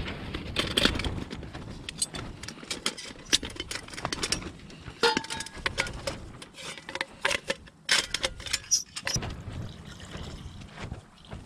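Aluminium Trangia storm-cooker pans and windshield clinking and scraping as they are unpacked and fitted together, with one brief ringing note about five seconds in. Near the end, water is poured from a plastic bottle into the pot.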